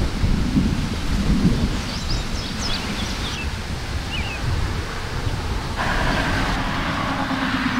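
Distant thunder rumbling low and continuously through a storm. A few short high chirps come a couple of seconds in.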